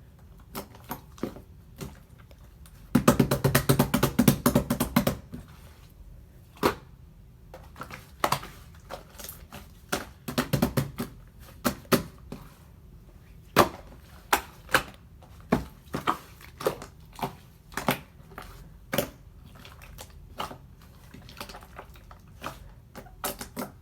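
Slime being stretched and pressed by hand, giving scattered sharp pops and clicks, with two dense stretches of crackling about three and ten seconds in.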